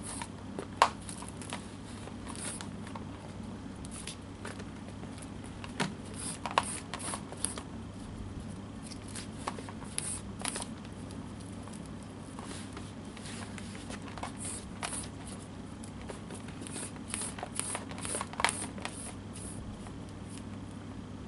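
Linen hand-sewing thread being handled and rubbed against a lump of wax: scattered light rustles and scrapes with occasional sharp clicks, over a steady low hum.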